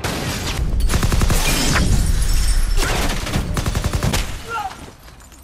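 Rapid bursts of automatic rifle fire, many shots close together, dying away about four seconds in.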